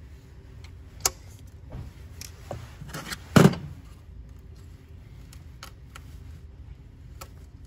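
Pliers and spring hose clamps clicking and rattling as stubborn rubber hoses are worked off a diesel engine's fuel pump area, with one louder sharp snap about three and a half seconds in.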